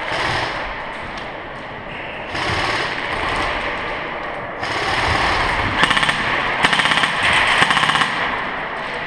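Airsoft electric guns firing in rapid full-auto bursts, loudest between about six and eight seconds in.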